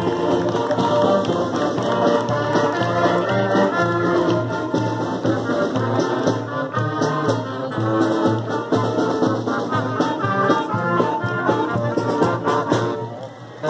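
Marching band playing a brass tune over a drum line, with horns and snare and bass drums together. The music drops away briefly near the end, then comes back in.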